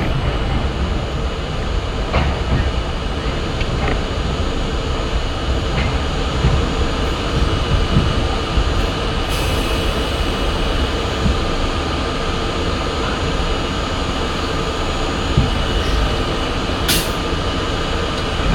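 R32 New York City subway car in motion, heard from the front of the train: a steady rumble of wheels on rail with a faint steady whine. A few clicks come over rail joints in the first seconds, and two short sharp high sounds come near the middle and near the end.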